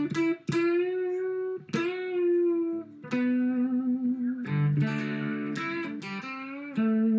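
Tokai Firebird electric guitar with mini humbuckers, tuned to open G, being played: single notes picked and left to ring about every second or so, then fuller chords from about four and a half seconds in.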